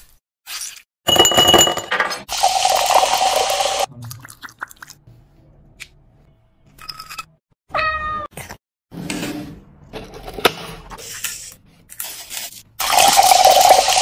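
A hand-held stick blender whirring through cherry tomatoes in a glass for about three seconds, then scattered short taps and clicks, and one cat meow about eight seconds in. Near the end, cola is poured from a plastic bottle into a glass, splashing for about a second.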